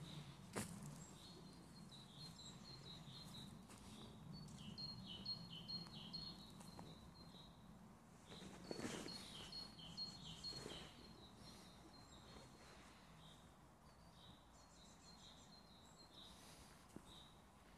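Faint songbirds singing in the forest: short high chirps in repeated phrases, with a quick trill near the end. A low steady rumble runs beneath, and a sharp click sounds about half a second in.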